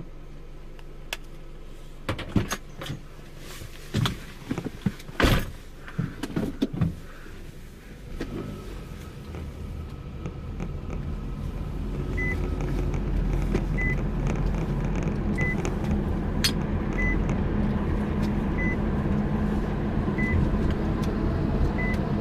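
A car heard from inside the cabin: the engine idles, a run of sharp knocks and thumps comes about two to seven seconds in, then the engine and tyre noise build steadily as the car pulls away. In the second half a short electronic chime repeats about every one and a half seconds.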